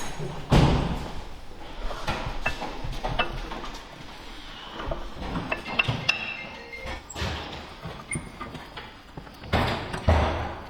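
A series of irregular knocks and thumps, with two louder thuds: one about half a second in and one near the end.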